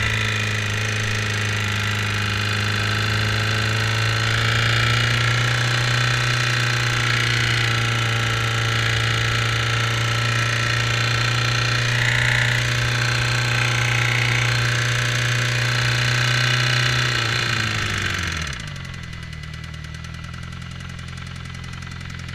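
2008 Suzuki GSX-R600 engine running steadily with a tick or click coming from the engine, an abnormal noise the owner suspects is valve-related. About 17 seconds in, the engine speed falls and it carries on more quietly at a lower speed.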